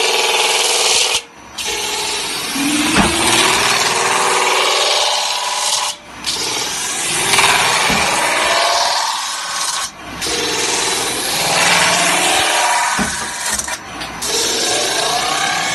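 CNC metal spinning lathe forming a spinning sheet-metal blank: the forming roller rubs and scrapes along the metal with a harsh hiss and gliding tones. The noise breaks off briefly four times, about every four seconds.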